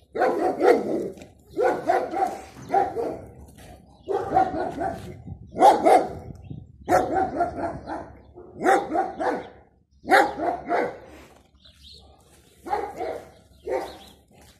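Yard guard dog barking repeatedly from behind a metal gate at a dog walking past, in short runs of one or two barks with brief pauses, pausing near the end before a few last barks.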